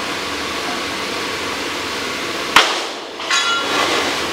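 A single sharp metallic clang of a hammer striking steel, ringing briefly, over the steady rush of the forge's air blower.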